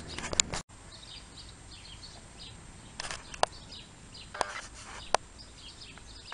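A handful of sharp clicks, about a second apart, from hand tools being handled: a socket set and ratchet laid down on concrete and fitted to the compressor's pump. Faint bird chirps sound behind.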